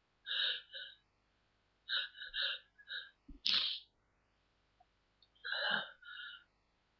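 A person sneezing in a series of short, half-stifled bursts with catching breaths between them; the loudest, fullest sneeze comes about halfway through.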